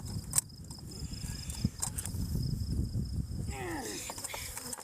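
Sharp knocks and a rumble of handling as a beehive entrance that the bees have sealed shut is worked open. A faint, steady insect trill runs underneath.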